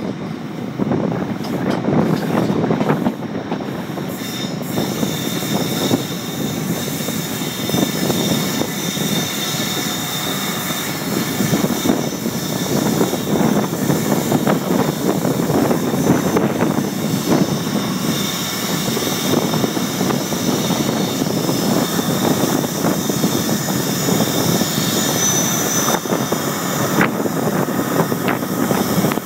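Passenger train running at speed, heard from an open window of a Mk3 coach: a steady rush of wheel-on-rail noise and air, with a faint high squeal from the wheels over it.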